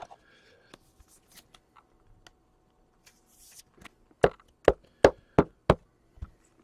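Trading cards being handled on a tabletop: faint clicks and rustles, then a run of five sharp taps, about three a second, a little over four seconds in.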